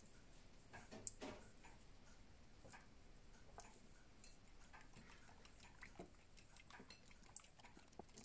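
A metal fork beating raw eggs in a glass bowl, heard as faint, irregular clicks and taps of the fork against the glass, with one sharper tap about a second in.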